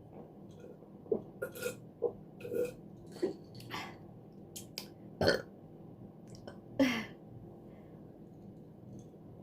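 Close-miked drinking of a cold pineapple drink: an irregular series of short, wet sips and gulping swallows. The two loudest gulps come about five and seven seconds in.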